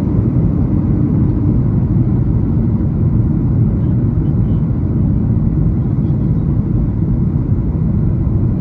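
Steady low rumble of engine and airflow noise heard from inside the passenger cabin of a Boeing 737 MAX 8 in flight.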